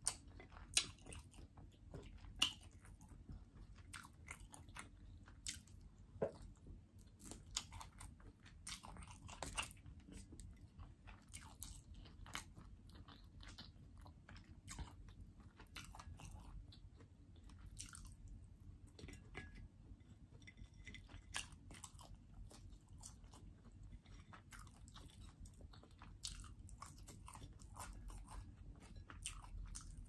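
Close-up chewing and biting of roasted chicken and fried potatoes: many small irregular crunches and mouth clicks, a few of them sharper in the first ten seconds or so.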